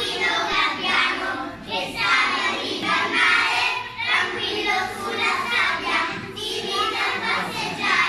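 A group of young children singing together, in phrases about two seconds long.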